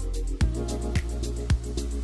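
Background music with a steady kick-drum beat, just under two beats a second, over sustained bass notes.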